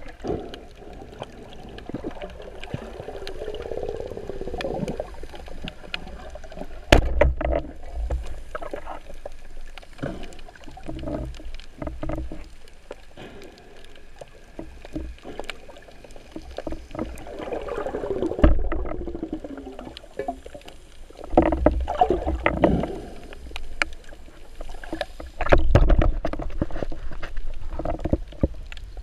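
Underwater sound through an action camera's waterproof housing while freediving: water moving and bubbling, with a few slow falling whooshes and several dull knocks and thumps.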